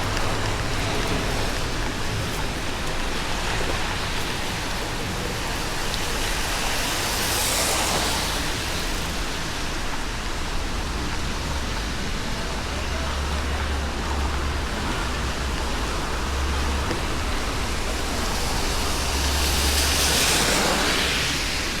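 Steady hiss of rain and wet road with a low rumble underneath, and two vehicles swishing past on the wet road, one about a third of the way in and one near the end.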